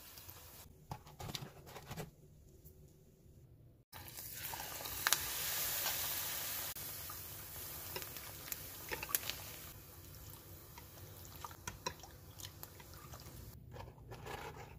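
Batter-coated perilla leaf deep-frying in hot oil: a hissing sizzle full of small crackles and pops. It is faint with scattered clicks at first, swells to a steady loud sizzle about four seconds in, and eases off later.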